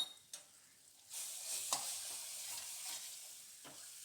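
Vegetables and masala frying in oil in a pan as they are stirred: a few clicks of the spoon against the pan, then a steady sizzle from about a second in.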